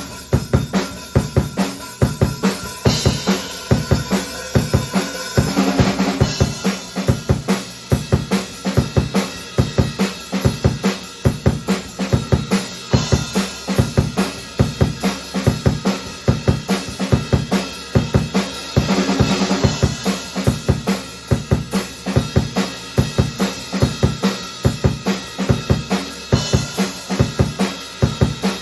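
Drum kit played alone, with no backing music: a steady, fast beat of bass drum and snare, with crash cymbals struck about five times.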